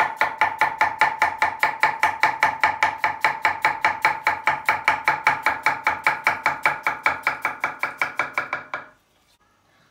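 Kitchen knife slicing peeled potatoes into thin rounds on an end-grain wooden cutting board: a fast, even run of chops, about six a second, that stops about a second before the end.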